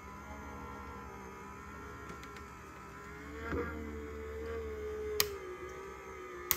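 The electric motor of a Sizzix Big Shot Switch Plus die-cutting machine runs steadily as its rollers pull a stack of cutting plates, dies and cardstock through in one pass. It grows a little louder about halfway through, its pitch dips slightly near the end, and there are two sharp clicks.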